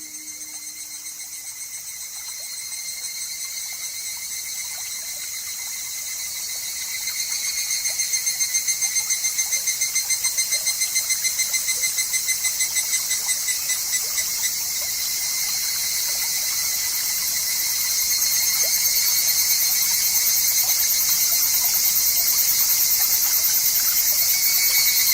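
Higurashi (evening cicadas) calling: a high, fast-pulsing call that grows louder about seven seconds in and again near eighteen seconds. A faint trickling stream runs under it.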